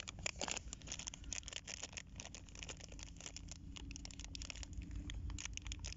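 Plastic packaging crinkling and rustling in the hands: a dense stream of small crackles as a small zip bag holding a balancer lure is handled and opened.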